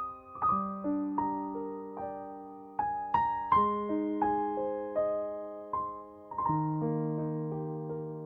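Background music: a slow, gentle piano melody with chords, notes struck about every half second and left to ring out.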